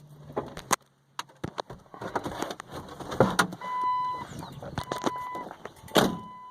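Car being shut off and left: a low hum cuts off with a click about a second in, then knocks and clicks of handling and the door, and the car's electronic warning chime beeping three times, each beep about half a second long.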